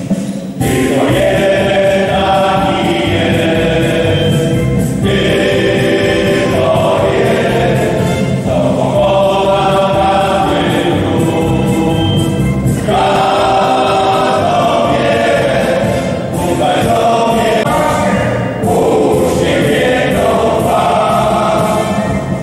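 Male choir singing in several voices, phrase after phrase with brief breaths between them.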